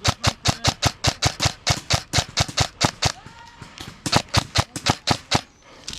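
Airsoft rifle fired in rapid semi-auto, about five sharp cracking shots a second. There is a short pause about three seconds in, then another string of shots that stops near the end.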